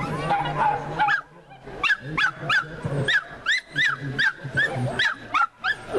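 A dog barking in a rapid string of short, high yips, about three a second, starting about a second in.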